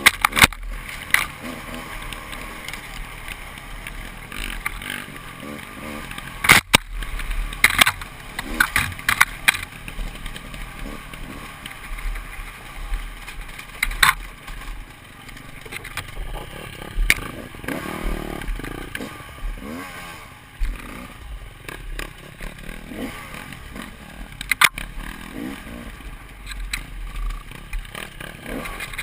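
Enduro dirt bike running on a trail, with frequent sharp knocks and clatter over the engine noise.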